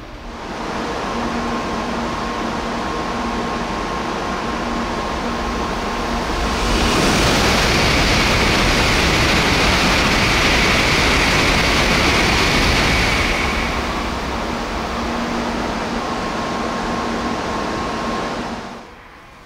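N700A Shinkansen train passing at high speed, about 260 km/h: a rushing noise starts about half a second in and swells to its loudest for about six seconds in the middle, then eases off. A faint steady hum and whine can be heard before and after the loudest part, and the sound cuts off abruptly near the end.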